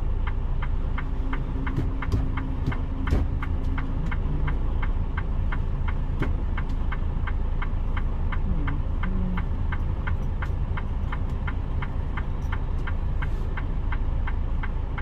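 Semi truck's diesel engine running with a steady low rumble heard from the cab, under a sharp, regular ticking of about three ticks a second.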